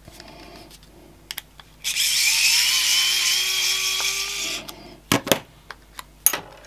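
Cordless electric precision screwdriver running for about two and a half seconds, its motor whirring at a pitch that creeps slightly upward as it backs a screw out of a 3D printer's filament sensor housing. A few sharp clicks of small plastic parts being handled follow near the end.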